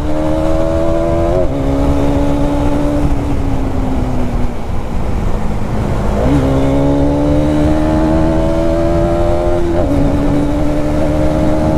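Hero Xtreme 250R's single-cylinder engine and exhaust under way, pulling up through the gears. The note climbs steadily, dips sharply at an upshift near the start, eases off for a few seconds in the middle, then picks up and climbs again with another upshift near the end, over wind and road noise.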